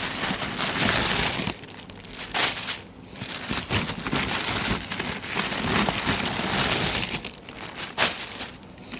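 Plastic packaging crinkling and rustling as packets of craft wire are handled, with a few short pauses.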